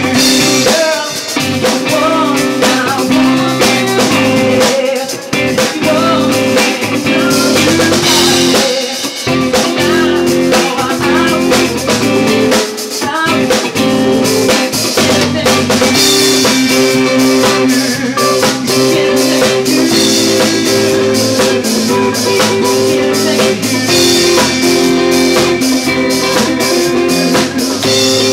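A live band playing a song: electric guitar and drum kit, with a man singing into a microphone.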